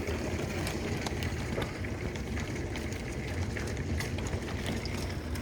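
Heavy storm noise: rain and hail pouring down steadily, with many sharp ticks of stones striking surfaces over a low wind rumble.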